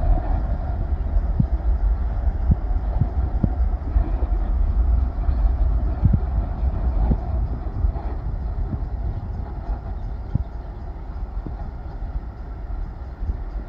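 Boeing 737's jet engines at takeoff power: a steady low rumble through the takeoff roll and lift-off, slowly fading as the aircraft climbs away, with scattered short low thumps.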